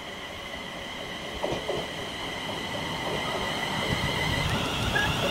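ScotRail Class 380 electric multiple unit approaching along the platform, its running noise growing steadily louder, with a steady high whine throughout. A couple of brief knocks sound about one and a half seconds in.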